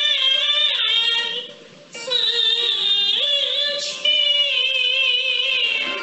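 A woman singing a Beijing opera aria in a high, sliding, ornamented voice, with a short break between phrases about a second and a half in.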